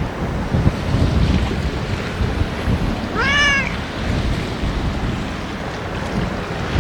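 A stray cat meows once, a short call about half a second long that rises and then falls in pitch, about halfway through. Strong wind buffets the microphone throughout in gusts.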